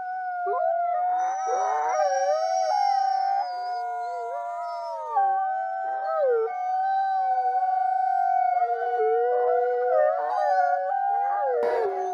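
A pack of wolves howling in chorus: several voices overlap, one holding a long, steady note while others rise and fall around it, with higher yips mixed in. A brief noise cuts across near the end.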